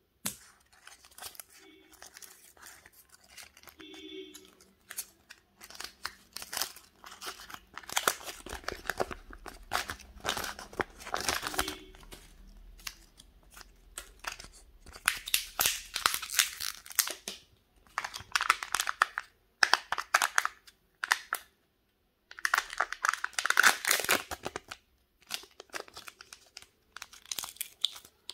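Foil wrapper of a Kinder Surprise chocolate egg crinkling and tearing in irregular bursts as it is unwrapped by hand.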